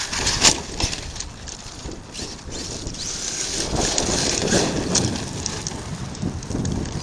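Arrma Kraton 8S 1/5-scale RC truck's brushless electric motor whining as the truck runs and accelerates over dirt, with a sharp knock about half a second in and scattered smaller clicks and rattles, and wind on the microphone.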